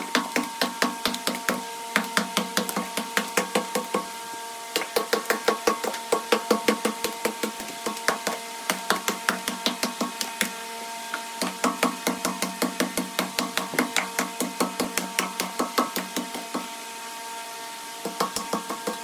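Rapid, regular knocks of a tool striking wood, about three to four a second, with short breaks about four seconds in and near the end, over a steady tone.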